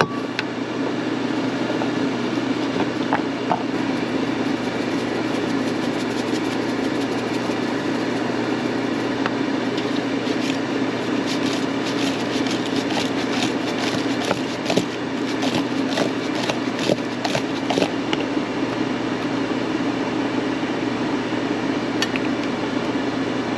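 Air fryer running with a steady fan whir. Between about ten and eighteen seconds in, a run of quick clicks and rattles rises over it.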